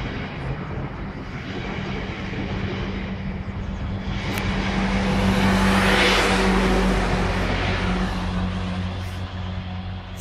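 Electric multiple-unit train pulling out of the station: a steady motor hum under wheel and rail noise that swells to its loudest as the last coach passes, about six seconds in, then fades. A brief click comes at the very end.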